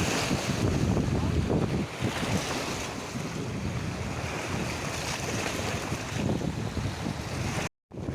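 Sea waves washing in, with wind buffeting the microphone in uneven gusts. The sound cuts out for a split second near the end.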